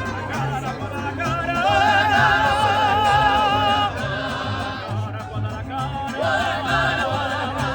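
Live street band music: a melody with heavy vibrato and long held notes over a repeating bass line.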